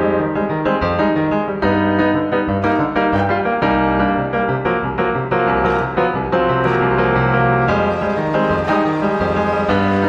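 Instrumental music led by piano, many notes struck in quick succession at a steady level.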